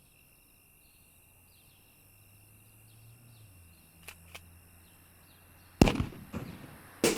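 Something thrown hits hard with a loud crash about six seconds in, followed by a few smaller knocks, then a second crash just before the end that starts a shattering, breaking-glass sound.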